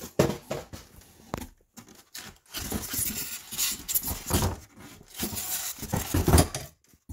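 Plastic wrapping and packaging rustling and crinkling in irregular bursts as a packed stand mixer's bowl is handled inside its cardboard box, with a sharp knock about a quarter second in.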